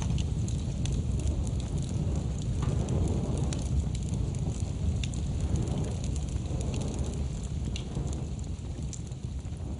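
A cremation fire burning: scattered crackles and pops over a steady low rumble of flames.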